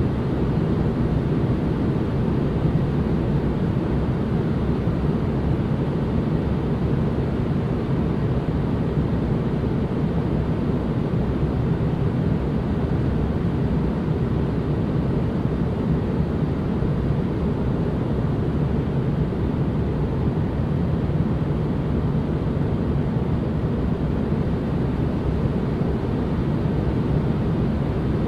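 Steady white-noise ambience: a constant, even rushing noise weighted toward the low end, unchanging throughout.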